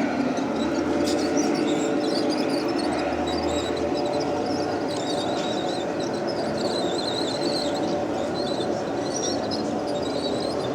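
G-scale garden-railway train running, its wheels giving a wavering high-pitched squeal on the track over a steady background rumble.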